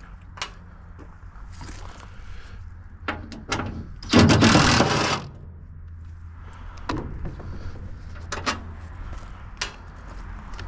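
Scattered clicks and knocks of metal parts being handled while an air conditioner is dismantled, with one loud rushing, scraping burst lasting about a second a little before the middle, over a steady low hum.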